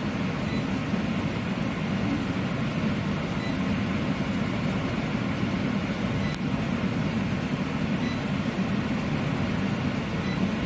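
Dehumidifier running with a steady low hum, with a single light click about six seconds in.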